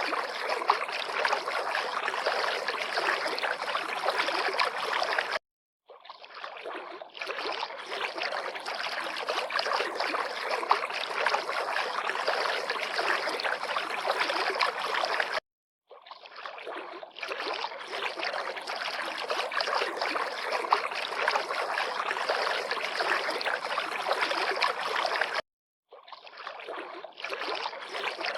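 River water lapping and splashing in a steady rush. It drops out to brief silence three times, about every ten seconds, as if the recording were looped.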